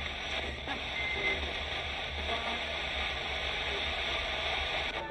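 Roberts R9921 portable radio used as a spirit box, sweeping through stations: a steady hiss of radio static chopped with brief fragments of broadcast sound, over a low hum.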